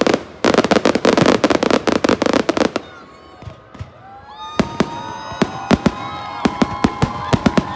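Fireworks display: a fast volley of sharp crackling bangs, a short lull about three seconds in, then spaced sharp bangs with whistling tones that hold steady or bend in pitch.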